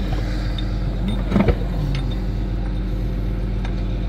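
John Deere 8640 tractor's diesel engine idling steadily. A few sharp metal clanks about a second and a half in come from the plow's steel pin and depth-adjustment bracket being handled.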